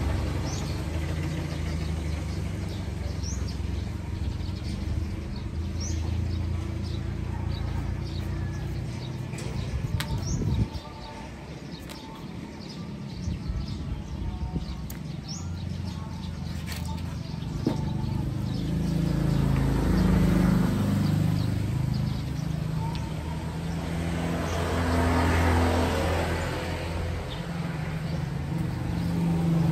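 Low engine rumble of nearby road traffic, swelling and fading as vehicles pass, with small birds chirping and a few sharp clicks.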